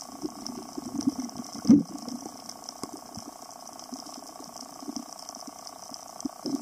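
Underwater ambience heard through a camera housing: a steady hum with scattered crackling clicks and muffled water swishes, and one louder thump a little under two seconds in.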